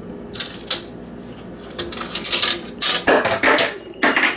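Metal keys clinking and jingling together as they are handled, with a run of sharp metallic clicks and high ringing from about two seconds in.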